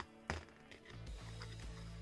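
Quiet background music with steady held low notes, and two light handling clicks near the start.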